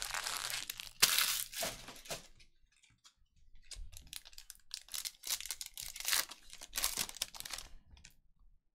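Foil wrapper of a Panini Mosaic football card pack crinkling in the hands, then tearing open in a run of short rips from about four seconds in.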